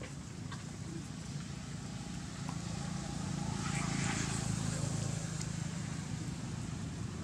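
Low, steady hum of a motor vehicle's engine, growing louder about four seconds in as it passes, then easing off.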